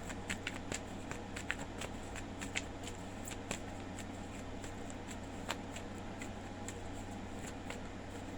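Tarot cards being shuffled and handled: scattered light clicks and flicks of card stock, over a steady low hum.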